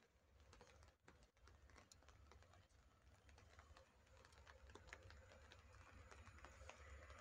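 Faint, irregular ticking of raindrops over a low rumble. Near the end a faint sound slowly grows as a distant EU07 electric locomotive running light approaches.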